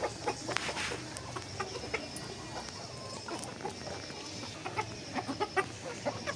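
Free-range chickens clucking in short scattered calls, busiest in the first second and again in the last couple of seconds.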